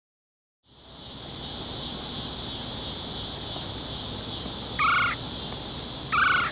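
Woodland ambience fading in about half a second in: a steady, high-pitched insect chorus, with two short animal calls near the end.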